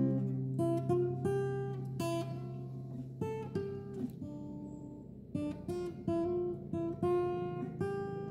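Background music: acoustic guitar playing a run of plucked notes over a held low note.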